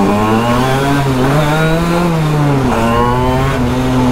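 Tuned 145cc Quattrini two-stroke engine in a Vespa PK 50 accelerating hard under full throttle. The revs climb, fall sharply at an upshift about two and a half seconds in, then pull up again.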